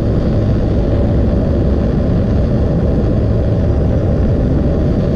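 Soldering torch flame burning with a steady roar while a copper valve joint is heated for sweating.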